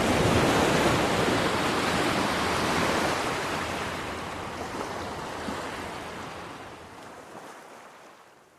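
A rushing noise without any pitch, loudest for the first three seconds and then slowly fading out.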